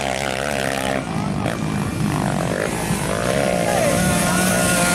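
Several motocross bikes running on the track, their engine notes wavering and rising and falling in pitch as the riders work the throttle.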